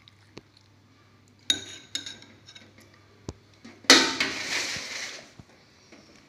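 A metal spoon clinks against a ceramic bowl and a metal tray: a few light clinks and taps. Then, about four seconds in, comes a louder scraping rattle on the metal tray that lasts about a second and dies away, as the steamed papaya is shifted on the tray.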